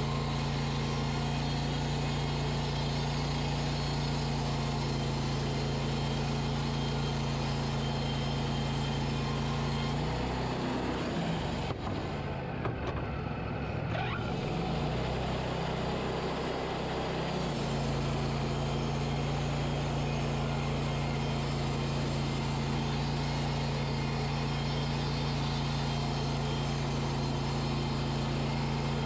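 Wood-Mizer LT40 band sawmill running steadily under power. From about ten seconds in, the steady engine note wavers and shifts for several seconds before settling back to the same steady hum.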